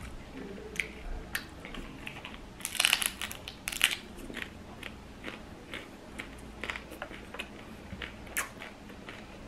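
Biting into and chewing a crisp fried corn tortilla chip: the loudest crunches come about three to four seconds in, followed by a string of smaller crunches as it is chewed.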